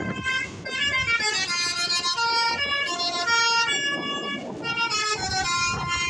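Basuri musical bus horn playing a telolet melody: a fast run of loud horn notes that jump from pitch to pitch every half second or so, without a break.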